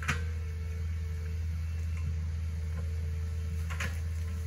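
Hitachi ZaXis 48U mini excavator's diesel engine running steadily under digging work, a low even hum. A short click sounds just after the start and another near the end.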